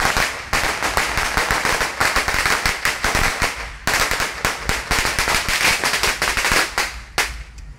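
Strings of firecrackers going off in a rapid, continuous crackle of sharp bangs, with a short break near the middle, stopping about seven seconds in.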